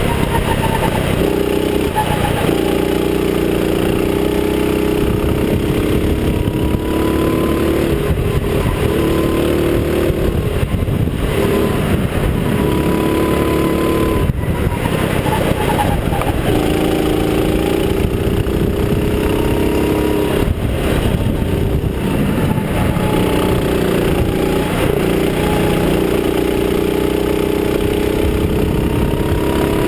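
Go-kart engine heard from the driver's seat under racing load, its pitch rising and dropping again and again as the throttle comes on and off through the corners.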